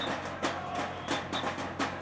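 Sticks beating a rhythm on a metal tin box, sharp strikes coming several times a second, with a short high whistle-like note recurring now and then.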